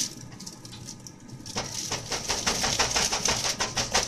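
A utensil stirred quickly in a glass bowl of melted candy, scraping and clicking against the glass about six times a second. The stirring starts about a second and a half in.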